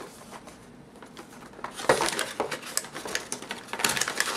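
Cardboard retail phone box being pried open by hand: paper and cardboard crackling and tearing. It is faint at first and turns into a busy run of crackles and clicks from about two seconds in.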